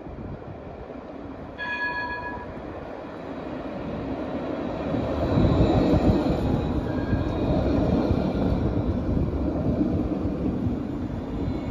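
Alstom Citadis tram approaching and passing at close range, its rolling noise growing louder to a peak about six seconds in and staying loud as the cars go by. A short chime-like tone sounds about two seconds in.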